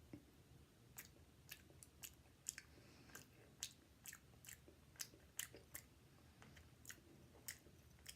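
A person chewing a mouthful of canned mussels in marinade: faint, soft, wet mouth clicks, irregular, about two a second.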